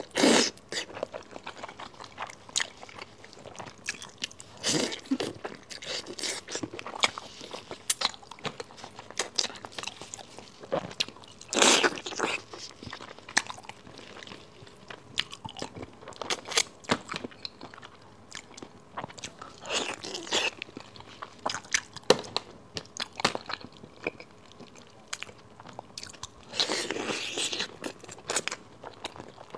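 Close-miked biting and chewing of braised pig's trotters: wet smacking clicks of the mouth on soft skin and meat, with a louder, longer burst every several seconds.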